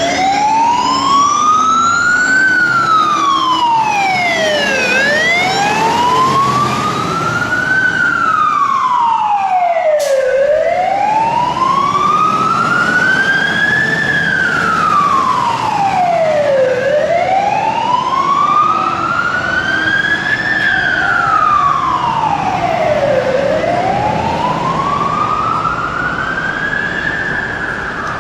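Australian fire truck siren sounding a slow wail, one tone rising and falling in pitch about every six and a half seconds, over a low steady rumble.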